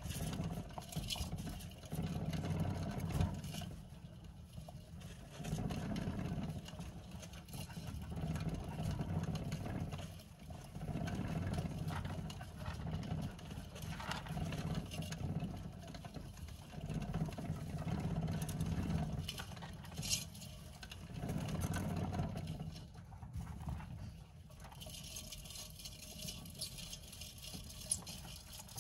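Clear plastic saucer-style hamster wheel rumbling as Djungarian hamsters run on it, coming and going in bouts of a few seconds, with small clicks and crackles of paper bedding over it.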